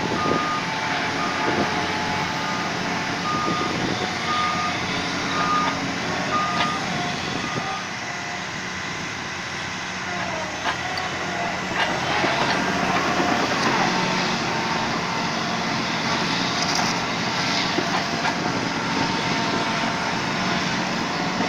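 Liebherr PR754 crawler bulldozer's diesel engine running steadily under load, its reversing alarm beeping about once a second for the first seven seconds. A few metal clanks come through partway in.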